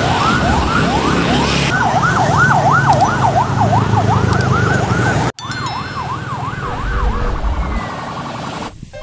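Police car's electronic siren sounding a repeating up-and-down sweep, the sweeps getting quicker a few seconds in, over the rumble of road traffic. It breaks off suddenly about five seconds in, comes back quieter, and stops near the end, leaving traffic noise.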